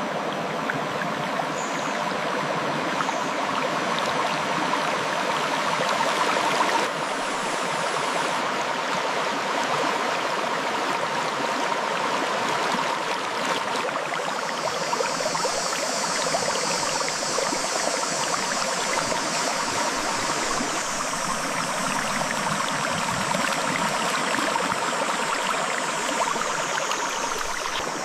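Clear river water flowing steadily over rocks, a continuous rushing with no pauses; a higher hiss joins in about halfway through.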